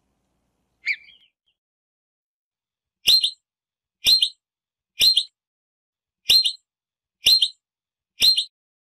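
Groundhog giving short, sharp, high alarm whistles. A faint one comes about a second in, then six loud ones at about one a second.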